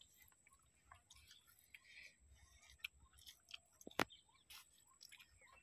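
Near silence with faint eating sounds, soft chewing and small mouth clicks, and one sharp click about four seconds in.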